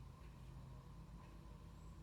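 Near silence: room tone with a low steady hum and a few faint soft ticks.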